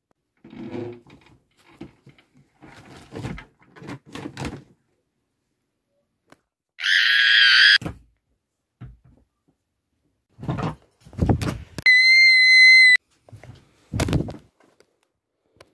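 Scattered thumps and knocks of children moving about a small room, with a child's scream lasting about a second around seven seconds in. A steady high-pitched tone sounds for about a second near the end, between further thumps.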